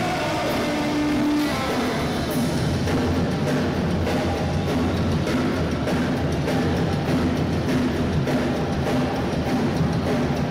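Live Oi! punk band playing an instrumental passage with no singing: distorted electric guitar, bass and a drum kit keeping a steady beat, heard loud through the PA.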